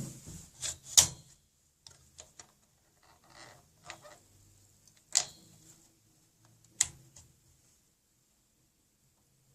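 Sharp clicks and knocks of a hard drive being pushed and seated into the drive bay of a Dell OptiPlex 745 ultra-small-form-factor PC case. The loudest comes about a second in, with two more strong knocks around five and seven seconds in.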